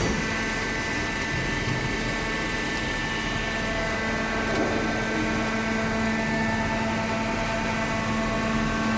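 Hydraulic baler's motor and pump running steadily, a constant machine hum with a low steady tone and a noisy wash over it.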